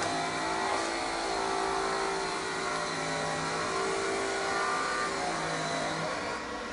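A motor running with a steady hum, which stops about six seconds in.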